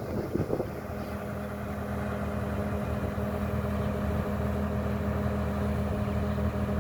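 Kubota combine harvester's diesel engine running steadily, growing gradually louder, with some rough noise in the first second.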